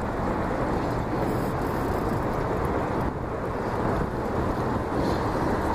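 Steady wind buffeting the microphone, a low, even rushing with no distinct events.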